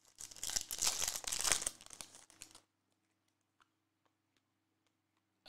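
A trading-card pack's plastic wrapper is torn open and crinkled for about two and a half seconds, then it goes nearly quiet with a few faint ticks.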